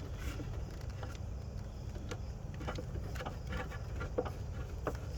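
Irregular light clicks of a hand tool and small screws as the cam sensor's screws are driven back in, over a steady low rumble.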